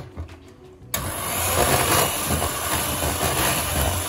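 Electric hand mixer switched on about a second in, its motor then running steadily as the beaters whip cake batter in a plastic bowl.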